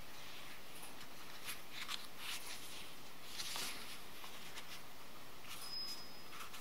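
Pages of a paperback book being turned by hand: soft, irregular paper rustles over a steady hiss.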